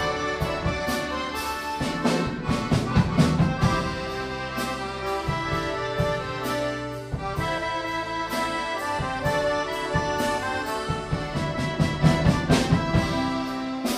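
An accordion orchestra plays full sustained chords and a melody, with drum and cymbal hits that come thicker about two to three seconds in and again near the end.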